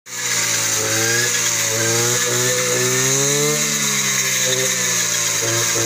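Petrol brush cutter running at speed while clearing weeds. Its engine note climbs gradually and then drops back a little past the middle.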